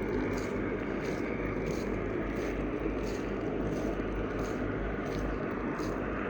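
Steady engine noise of a turboprop airliner taxiing around the airfield before takeoff, with a faint regular ticking, a little under two ticks a second, above it.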